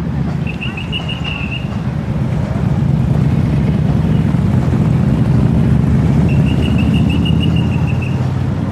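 A vehicle engine running with a heavy low rumble that grows louder in the middle, as the vehicle moves along the road. A short, high, rapidly pulsing trill comes about a second in and again near the end.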